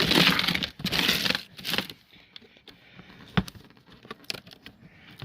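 Packaging being handled: loud crinkling and rustling for about the first second and a half, then a run of light clicks and taps.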